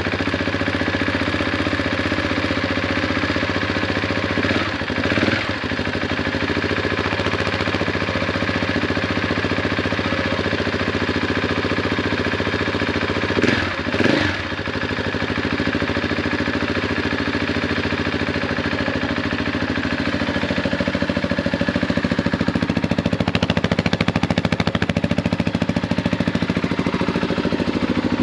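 Husqvarna 701's single-cylinder engine idling through an Akrapovic titanium slip-on exhaust, a steady thumping note with a bit of a bark to it. It is blipped briefly twice, about 5 and 14 seconds in, and gets a little louder near the end.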